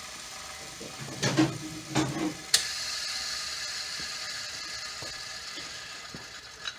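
Metal bench clamp being loosened and moved: a few knocks and rattles, then a sharp click about two and a half seconds in.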